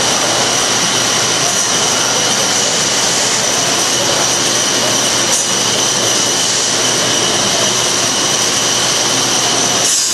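Small combat robots' electric drive motors whining steadily under load as the two robots push against each other, a rushing noise with two steady high tones.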